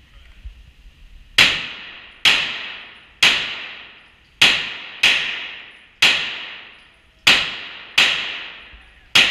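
A pistol fired nine times at a deliberate, uneven pace of roughly one shot a second, each sharp report trailing off in a reverberant echo from the enclosed range.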